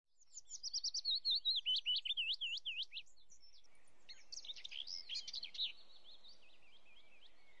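Small birds chirping: a quick run of rapid, repeated high chirps, then, after about three and a half seconds, a different stretch of twittering over a faint steady hiss that thins out near the end.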